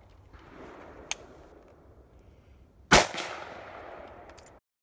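A shotgun fires a single clay-target load about three seconds in, and the report rings out for over a second before dying away. A fainter sharp click comes about a second in.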